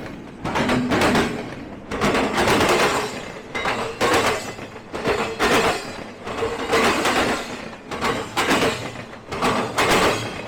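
Passing train's wheels clacking over the track in a steady rhythm: a cluster of sharp clacks about every second and a half, as each car's wheel sets go by, over a continuous rolling rumble.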